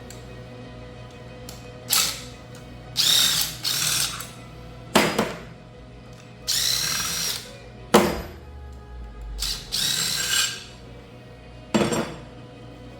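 A handheld power tool spinning a reverse Torx socket in several short bursts of one second or less, backing out bolts on an electric drive unit. Two sharp clicks fall between the bursts.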